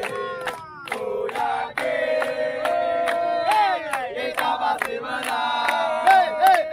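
A group of young men chanting a supporters' cheer together, with long held and sliding notes, to rhythmic hand claps about three a second.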